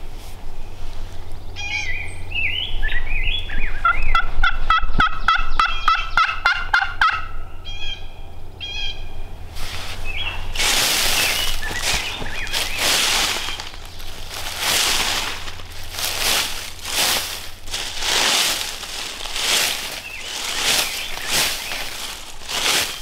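A wild turkey gobble: a long rapid rattling call starting about two seconds in, with short yelping notes before and after it. From about ten seconds on, a run of rustling crunches comes roughly once a second.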